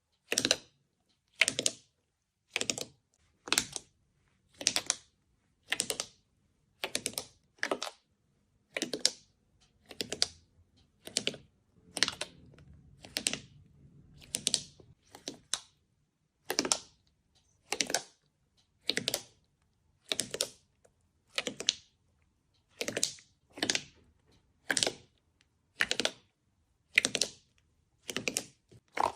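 Slime being pressed and squished by hand, giving short crackling, clicking bursts about once a second, some in quick pairs.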